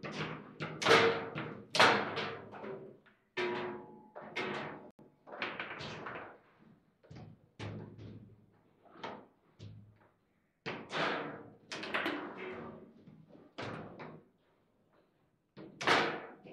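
Table football game in play: sharp knocks and bangs of the ball being hit by the rod figures and striking the table, coming in irregular clusters with short pauses. The loudest bangs come about one and two seconds in.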